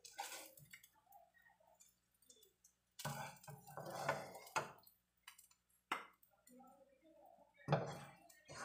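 A spatula scraping and knocking against a nonstick wok as fried shrimp are scooped out, in several bursts: a longer one about three to five seconds in, a short one near six seconds, and another near the end.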